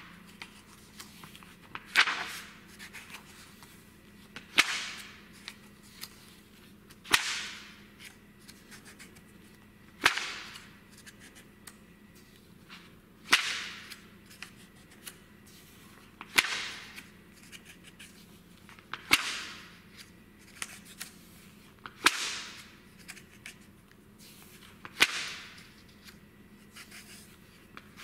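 Pages of a glossy print magazine being turned one at a time, a quick swish and flap about every three seconds, nine turns in all.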